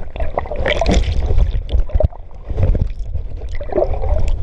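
Water splashing and sloshing close to the microphone from a swimmer's strokes, in irregular bursts over a heavy low rumble on the microphone.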